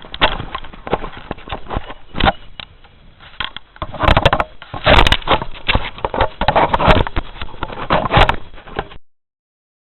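Camera handling noise: a dense run of clicks, knocks and scraping from the camera being taken off its tripod and turned around, loudest over the second half, then cutting off abruptly about a second before the end.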